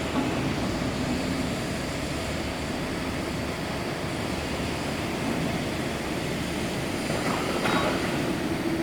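Steady hum of running workshop machinery, with a brief sharper noise near the end.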